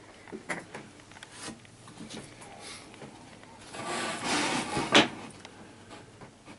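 Light knocks and taps of a wooden straightedge and pen being handled on a painted wooden baseboard, then about a second of loud rustling as a fleece sleeve brushes against the camera, ending in a sharp knock.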